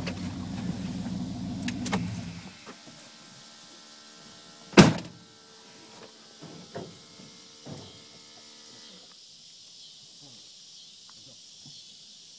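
A vehicle's engine running, then shutting off about two seconds in. A couple of seconds later a car door is slammed shut with one loud thunk, followed by a few lighter knocks. A faint steady hum stops near the middle.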